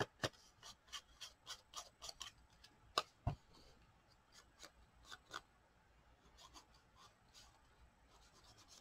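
Paper being handled: light rustling with a quick run of small clicks and taps, busier in the first half and thinning to a faint rustle after about five and a half seconds.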